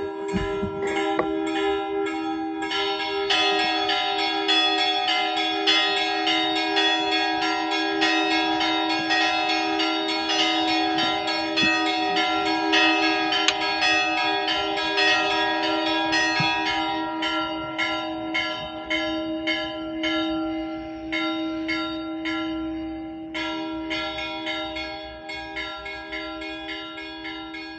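Church bells ringing, struck rapidly over and over, dying away near the end.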